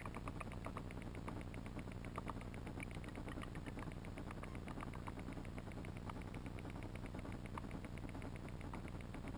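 Underwater sound as picked up by a GoPro in its waterproof housing: a steady low rumble with a fast, even ticking and a few scattered faint clicks.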